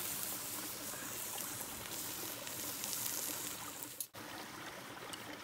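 A shallow creek running over rocks: a steady rush of flowing water. It breaks off for an instant about four seconds in.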